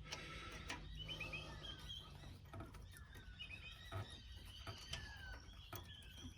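Faint background birdsong: quick rising chirps and repeated falling whistles, with a few soft clicks and taps scattered through it.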